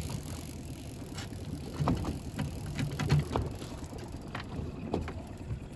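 Small outboard motor running steadily with a low hum, with several short knocks and clatters of fishing gear being handled on the boat, the loudest about two and three seconds in.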